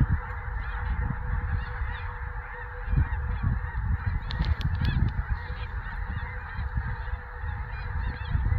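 A huge flock of geese calling in flight: a dense, unbroken din of many overlapping honks, with a low rumble underneath.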